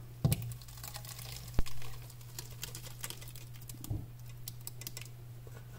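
Thick pumpkin purée and egg mixture being poured from a bowl into a glass baking dish: a run of small wet clicks and ticks, with a sharper tap about a second and a half in, over a low steady hum.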